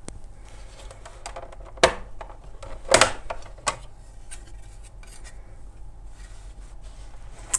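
Small metal clicks and clinks of a Royal 202 portable typewriter being handled and taken apart, with two sharper knocks about 2 and 3 seconds in.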